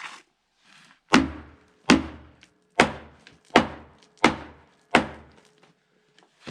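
Six heavy blows, a little under a second apart, of a hand tool striking frozen dirt packed inside a steel dozer blade, with a faint metallic ring between the strikes.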